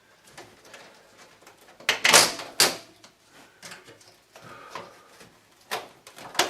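Knocks and clatters of a window air conditioner and its window being pushed and tugged, with two loud bangs about two seconds in. The unit is stuck because it is screwed into the window frame from outside.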